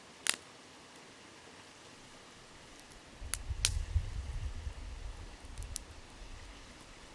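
Wood fire crackling: a loud sharp pop just after the start and a few more from about three seconds in, over a steady hiss of a flowing river. A low rumble comes in about three seconds in.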